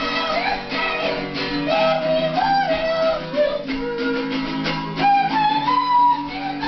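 A band playing live: loud music with a melodic line that bends up and down in pitch over sustained low notes.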